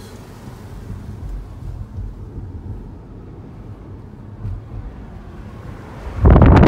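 Low, steady rumble of a car moving slowly along the street, then loud wind buffeting the microphone near the end.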